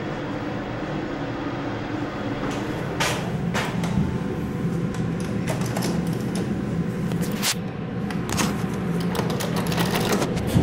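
Montgomery KONE hydraulic elevator heard from inside the closed cab: a steady low hum that swells a little about two seconds in. Over it come several sharp clicks and knocks as the lit car buttons are pressed.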